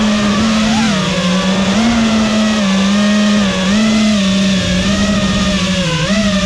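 FPV quadcopter's brushless motors and propellers whining, picked up by the onboard camera. The pitch keeps stepping up and dipping as the throttle changes while the drone manoeuvres.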